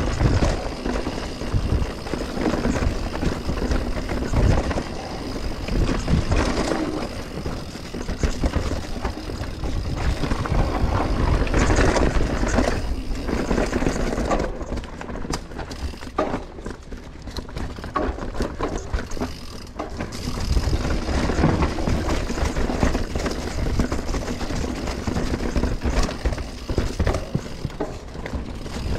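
Mountain bike riding down a dirt bike-park trail: tyre noise on dirt with the bike rattling over bumps, and wind buffeting the microphone. The noise rises and falls with the terrain and is quieter for a stretch in the middle.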